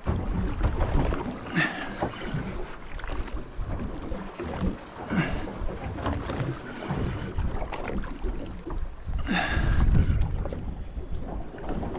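Wind buffeting the microphone over water washing against a small boat's hull, with a brief louder rush about every four seconds.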